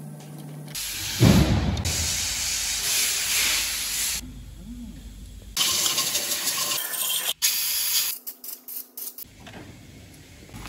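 Compressed-air blow gun blowing off an engine block in three long hissing blasts, the first and longest about a second in, then a quick run of short clicks.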